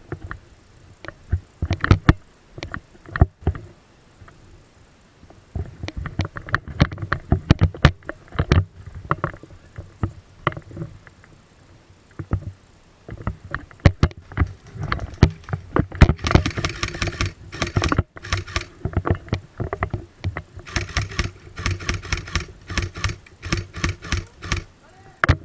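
Many sharp clicks and knocks in irregular runs, scattered at first and then dense for several seconds at a time from about six seconds in.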